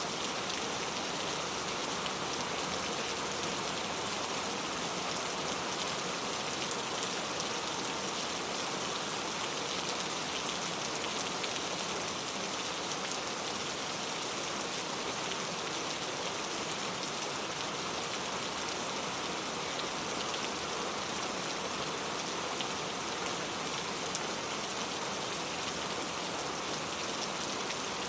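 Steady rainfall, drops pattering on the ground and foliage in an even hiss.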